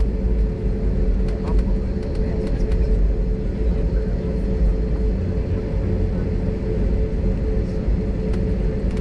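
Cabin noise of an Airbus A320 taxiing: a steady engine hum with a low rumble as the plane rolls along the taxiway.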